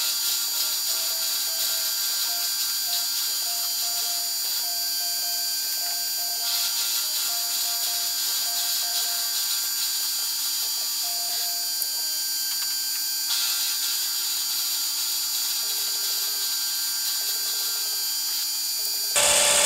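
Milling machine spindle running steadily while a quarter-inch end mill cuts a slot through steel connecting-rod stock, giving a constant motor hum and a high cutting whine. A light background tune plays over it.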